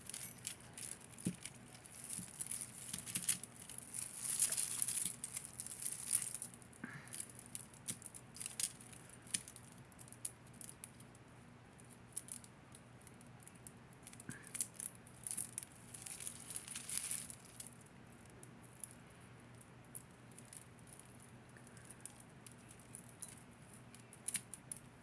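Hands digging through a pile of tangled costume jewelry: metal pieces and chains clinking and rattling, with crinkling. The light clicks and rustles come in scattered flurries, busiest about four to six seconds in and again about sixteen seconds in.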